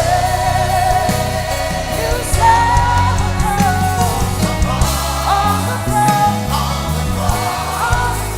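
Live worship band music with a wavering melody line, sung or played, over a steady, heavy bass.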